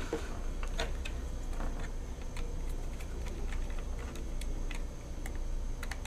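Light, irregular clicks and taps of small wires being fitted into the screw terminals of an alarm voice dialer's circuit board and the board's plastic case being handled. A steady low hum runs underneath.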